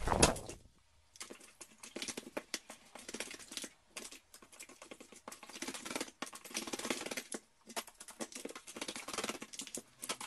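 Carrion crow bathing in a plastic washbasin of shallow water: repeated bouts of splashing as it dunks its body and beats its wings in the water, the biggest splash right at the start, with brief pauses between bouts.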